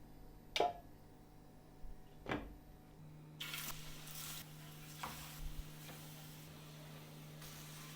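Two sharp knocks, then food sizzling in a hot pan from about three and a half seconds in, coming in short surges and settling to a steady hiss.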